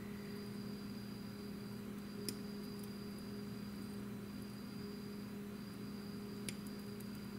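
Two small sharp clicks of flush side cutters snipping through thin metal model parts, about two seconds in and again about six and a half seconds in, over a steady electrical hum.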